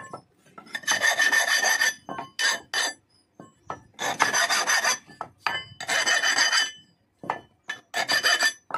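Flat steel hand file rasping across the edge of a forged axe head, sharpening it. Four long strokes of about a second each, with shorter quick strokes in between.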